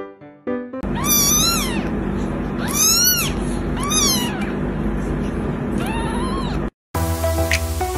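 A tiny kitten meowing: four high calls, each rising then falling, over a steady low hum, the last call near the end.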